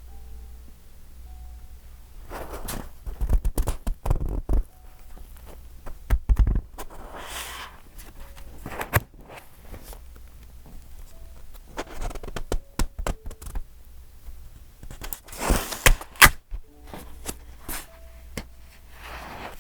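Pages of a thick, decorated paper journal being turned and handled. Several swishing page turns with crinkles, taps and soft thunks between them.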